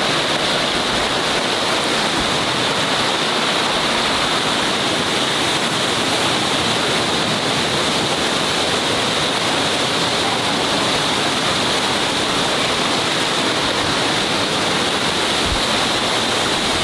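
Sipyen Waterfall's falling water rushing steadily and loudly, with no break or change.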